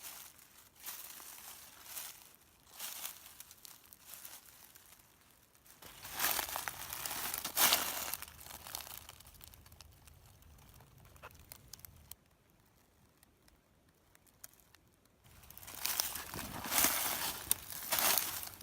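Footsteps crunching through dry fallen leaves: a few single crunches, then a louder run of steps. A quiet pause of about three seconds follows, and the crunching starts again near the end.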